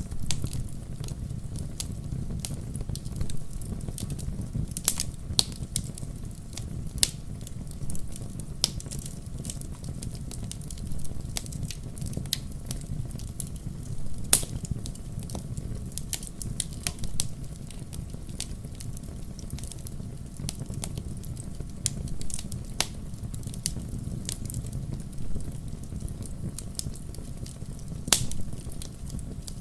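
Wood campfire crackling steadily, with a low rumble of the flames under frequent sharp snaps and an occasional louder pop.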